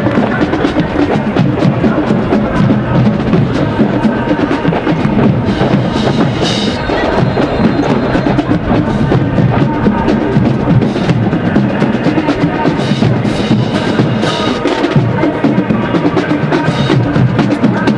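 Marching band drumline playing a steady marching cadence: snare drums, tenor drums and bass drums beating out a dense rhythm, with cymbal crashes every few seconds.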